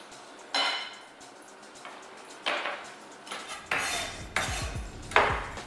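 Kitchenware being handled and set down on a cutting board: a handheld cheese grater and bowls, with a spoon in a stainless steel mixing bowl, giving several separate clinks and knocks a second or so apart, the loudest near the end.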